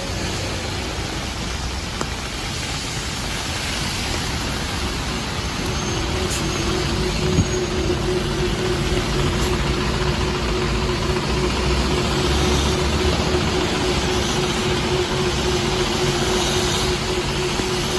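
Heavy rain hissing on the street with traffic passing on the wet road; from about six seconds in, a bus engine idling close by joins with a steady hum and low rumble, growing gradually louder.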